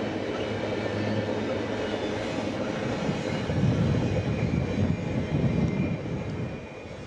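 Freight train of empty intermodal well cars rolling past on the rails: a continuous rumble and rattle of wheels and cars. It grows louder and more uneven about halfway through and falls off near the end.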